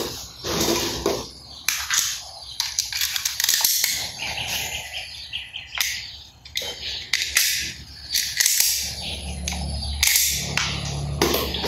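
Toy guns being clicked and fired: an irregular string of sharp clicks and short shot-like bursts, with some chirping tones between them.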